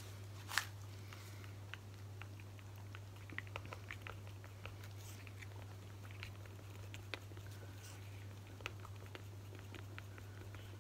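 Wooden craft stick stirring acrylic paint in a small plastic cup, working in extra paint to thicken a mix that was too thin. It makes irregular light clicks and taps against the cup over a steady low hum.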